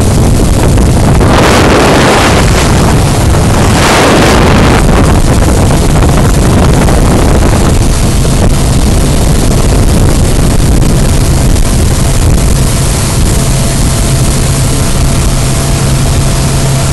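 Motorboat running under way, its engine a steady low hum under heavy wind rushing across the microphone, with two louder gusts about one and a half and four seconds in.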